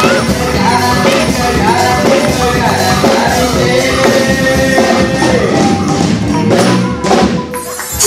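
Background music with singing and a tambourine-like percussion beat, which thins out and drops briefly near the end before starting again.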